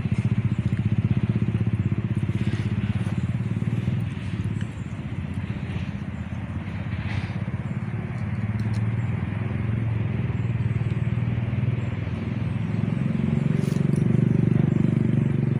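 A small engine running steadily with a low, rapid pulsing, dipping slightly a few seconds in and growing louder near the end.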